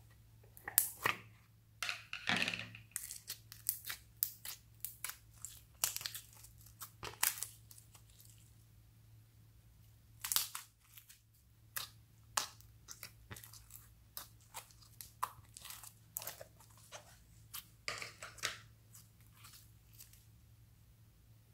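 Purple glitter slime being peeled out of a plastic container and stretched by hand, making a string of sticky crackles, pops and tearing sounds. A plastic lid clicks open near the start.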